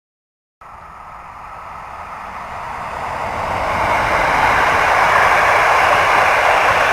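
Train approaching on the line: its running noise cuts in abruptly, grows steadily louder over about four seconds, then holds loud as it draws level.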